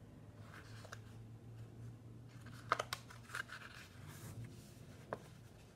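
Paper pages of a colouring book being handled and turned: soft rustling with a few sharp clicks around the middle and one more near the end.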